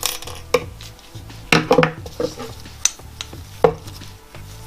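Sharp metallic clicks and clinks of long-nose pliers and a wrist-pin spring clip against a steel-and-aluminium piston and con rod as the clip is pried out, with a quick cluster of clinks about one and a half seconds in.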